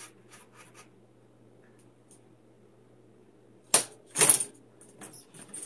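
Small hard objects being handled: a few faint clicks, then a loud metallic clatter of sharp clicks about four seconds in and a few more clicks near the end.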